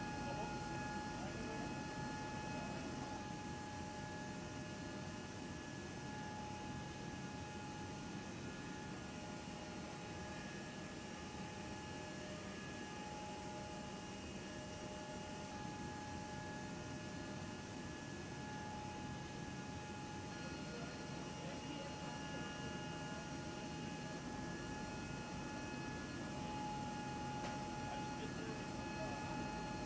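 Steady hum and whine of a running aircraft power unit, with several high steady tones that drop in and out.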